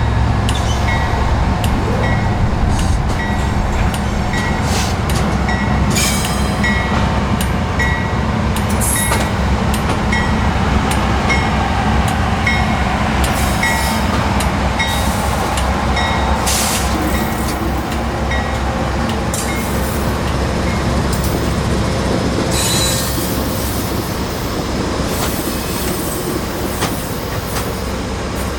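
Loaded coal train rolling past with a steady rumble and irregular wheel clicks and squeals. A bell rings at an even pace over it and stops a little past halfway.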